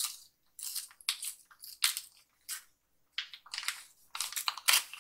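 Packaging being handled and crinkled, heard as a string of short, irregular rustles and crackles.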